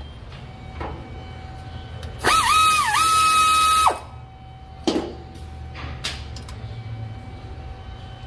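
Pneumatic air ratchet spinning out a rear differential cover bolt: a loud high whine starting about two seconds in and lasting over a second and a half. Its pitch dips twice at first under load, then runs steady until it cuts off. A sharp click comes about a second later.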